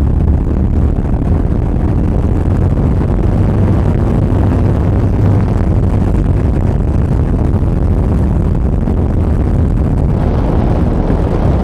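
Yamaha XV950R's air-cooled V-twin running steadily while the motorcycle cruises at road speed, a deep, even engine and exhaust note with road noise over it.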